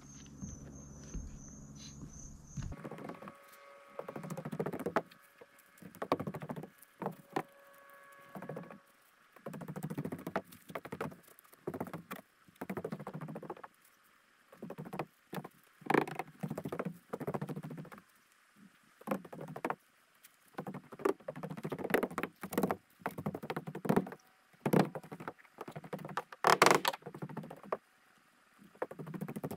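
Irregular footsteps and shuffling on an OSB roof deck, mixed with the rustle and flap of GAF WeatherWatch self-adhered underlayment being handled and positioned. A sharper knock comes near the end.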